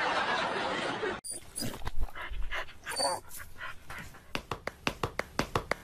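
A dog panting in short quick breaths, coming steadily at about four a second in the second half. Before it, a loud steady hiss cuts off sharply about a second in.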